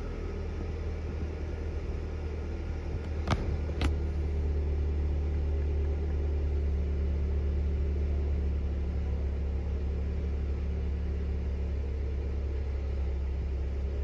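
2008 Mercury Mariner's 2.3-litre four-cylinder DOHC engine idling steadily, freshly started, with a low rumble. Two sharp clicks about half a second apart come a little over three seconds in.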